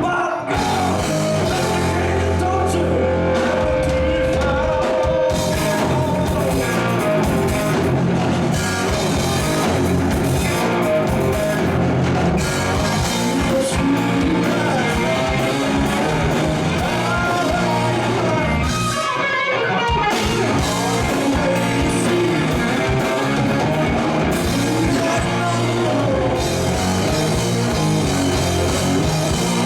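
A rock band playing at a steady loudness: electric guitar and drum kit, with singing.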